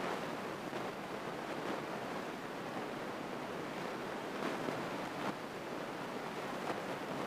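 Steady, even rush of a single-engine light airplane's cabin noise in flight, the propeller engine and airflow blended into a muffled hiss.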